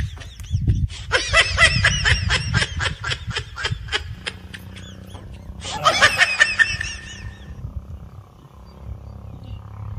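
Rapid high-pitched laughter, a quick run of 'he-he-he' pulses from about a second in for some three seconds, then another short burst about six seconds in.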